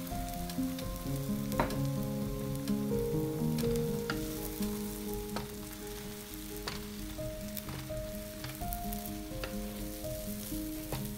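Beaten eggs and diced onion sizzling on a BRUNO electric hot plate, with the wooden spatula scraping and tapping on the plate about once a second. Soft piano music plays underneath.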